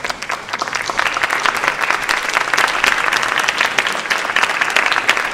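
Audience applauding, growing over the first second and then holding steady.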